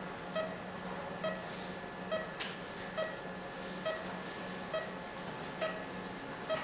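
Operating-room patient monitor beeping with the pulse, one short tone a little more often than once a second, over a steady low equipment hum; a single sharp click about two and a half seconds in.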